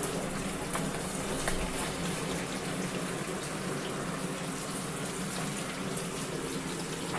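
Hot oil sizzling steadily in a kadai as pakodas deep-fry.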